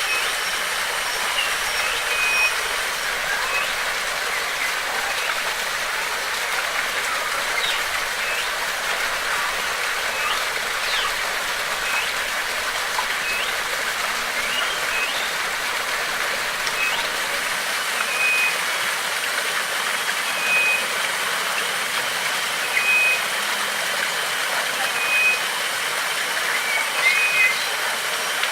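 Steady rush of running water, with scattered short bird chirps over it and a short high note repeating about every two seconds. A thin steady high whine runs above.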